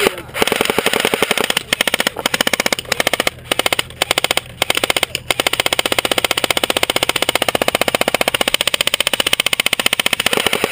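Airsoft electric rifle firing on full auto: a rapid, even rattle of shots, in several bursts with short pauses at first, then one long burst that stops near the end as the magazine runs empty.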